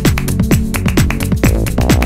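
Electronic dance music with a steady, fast kick-drum beat over held synth notes.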